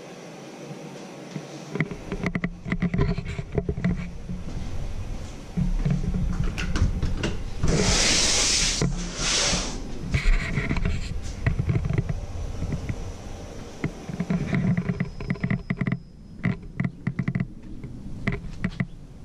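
Footsteps and camera-handling knocks as someone walks along carrying the camera, over a low rumble. About eight seconds in there is a loud rushing noise in two parts, around the time a door to the outside is opened.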